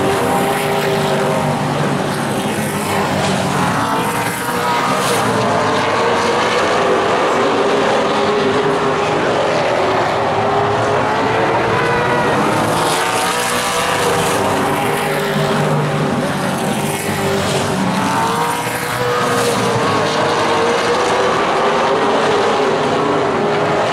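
A pack of late model stock cars racing, their V8 engines rising and falling in pitch as they come off and into the turns. The sound swells and fades several times as the field goes by.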